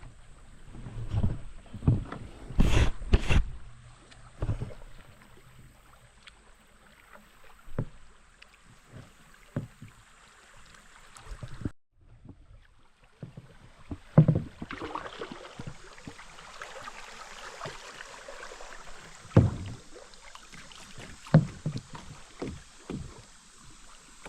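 Kayak on the water: paddle strokes splashing, with irregular knocks and thumps on the boat.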